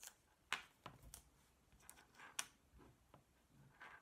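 Mostly quiet, broken by a few short, faint clicks and rustles from fingers handling thin speaker wires and heat-shrink tubing; the sharpest click comes about half a second in.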